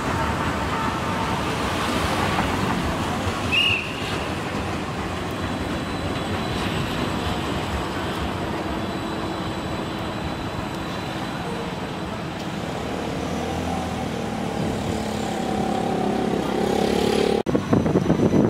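Light-rail tram running along the street and into a station over steady road-traffic noise, with a brief high squeak about three and a half seconds in. Near the end the tram's electric drive whines in several tones as it slows to a stop.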